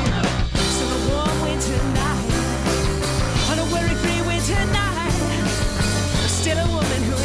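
Rock band playing a song: steady bass notes and drums, with sliding melodic lines over them.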